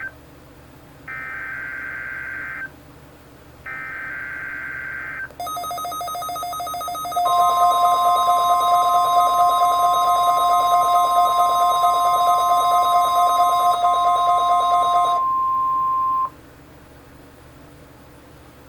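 NOAA Weather Radio test signal: short warbling SAME data bursts, each about a second and a half long and a second apart. A few seconds later a loud, rapidly pulsing, buzzy electronic alarm sets in, then the steady 1050 Hz warning alarm tone joins it for about nine seconds. The pulsing alarm is the receiver's own alert sounding. The alarm cuts off a second before the tone, which leaves radio hiss.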